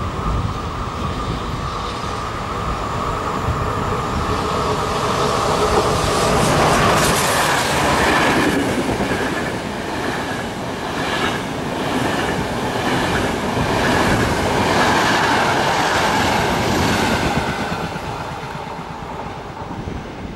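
Passenger train passing through a station: a steady hum as it approaches, then loud rushing wheel and air noise with a repeated clickety-clack of wheels over the rails as the carriages go by close, fading away near the end.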